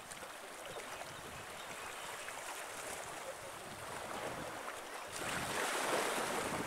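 Small waves washing against the beach and shoreline rocks, with wind buffeting the microphone; the wash swells louder about five seconds in.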